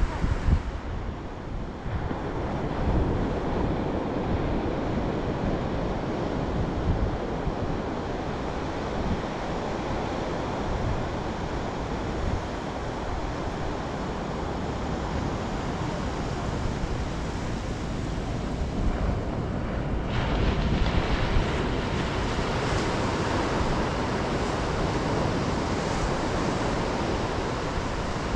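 Ocean surf washing onto a sandy beach as a steady rushing noise, with wind buffeting the microphone in low rumbles. About two-thirds of the way through, the rush grows a little louder and hissier.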